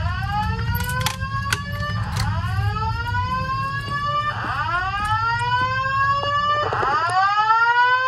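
Fire alarm speaker/strobe on a Simplex 4100ES voice evacuation system sounding the whoop evacuation tone: four rising whoops, each about two seconds long, one after another. It is the system in alarm after a manual pull station was activated for a test.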